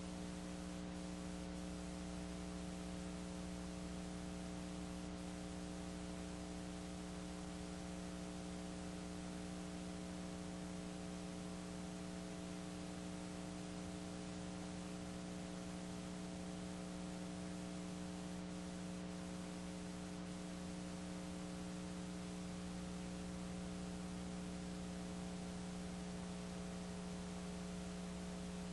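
Steady electrical mains hum with several fixed pitches over an even hiss. It never changes, and no crowd or game sound comes through.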